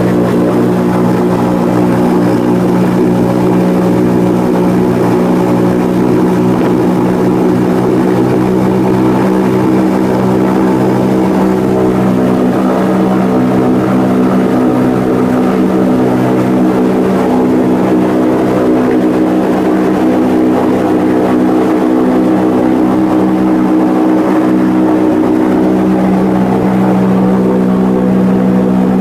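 The Spirit of Goodyear blimp's twin piston engines and propellers, heard from inside the gondola as a loud, steady drone of several even tones.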